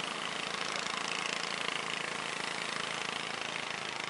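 Engines of traditional fishing boats running steadily as the boats pass close by, over a steady rush of water.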